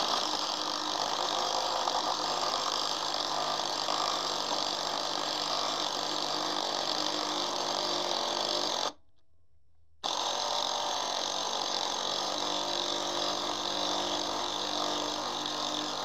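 Impact wrench hammering steadily on the forcing screw of a power steering pulley puller, trying to press a tight, seized pulley off the pump shaft. It runs for about nine seconds, stops for about a second, then hammers again.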